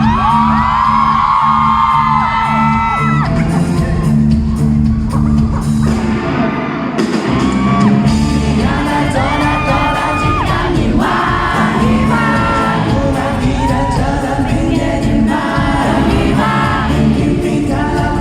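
Live pop-rock band playing with a male lead vocal singing held notes over electric bass, guitars and drums.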